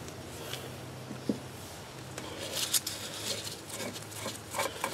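Faint handling of a Hydro Gear PW hydraulic pump housing by gloved hands working at its bolts: light rubbing and a few light clicks of metal, the sharpest near the end.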